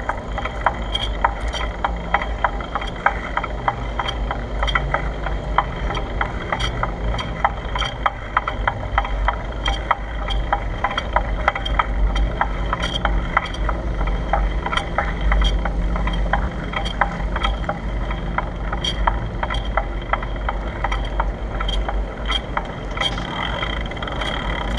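Bicycle being ridden: wind rumbling on the microphone, with constant quick rattling and clicking from the bike.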